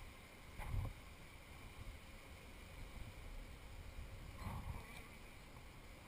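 Dull, muffled bumps and scraping as a wooden hive frame is worked loose and lifted out of a beehive: a sharper knock about a second in and a softer, longer one about halfway through, over a faint steady background.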